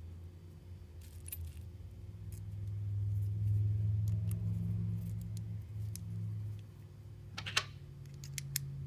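Small metal tool parts clinking and clicking as Allen screws and the tool's replacement heads are handled and fitted with an Allen wrench, with a sharp cluster of clinks near the end. Under it runs a low hum that swells in the middle.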